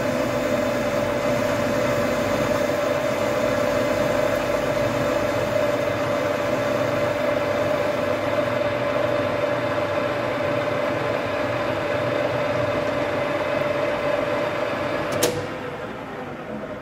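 Metal lathe running while the tool takes a turning cut, with a steady whine over a running hum. About fifteen seconds in a sharp click comes as the lathe is switched off, the whine stops and the machine runs down.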